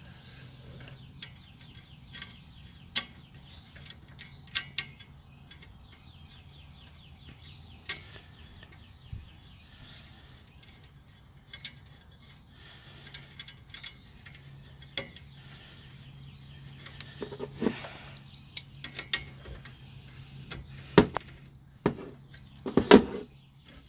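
Ratchet wrench clicking in runs of quick ticks while a 10 mm bolt on an aluminium A/C hose fitting is tightened, with scattered sharp metal clinks and knocks of the tool and fitting, the loudest near the end.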